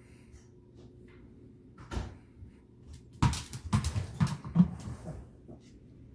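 A quick run of knocks and thumps about three seconds in, after a single knock, as a small Shih Tzu–Yorkie mix dog scrambles after a ball on a hardwood floor.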